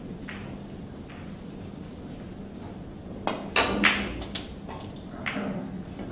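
Pool cue striking the cue ball, then sharp clacks of billiard balls colliding: a quick run of four or five clicks about three and a half seconds in.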